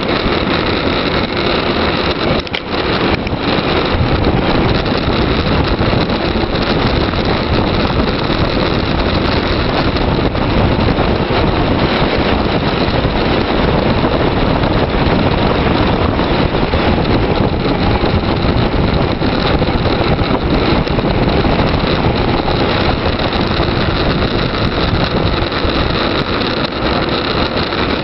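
Loud, steady wind rushing over the microphone of a camera on a bicycle descending at speed, with a brief dip about two and a half seconds in.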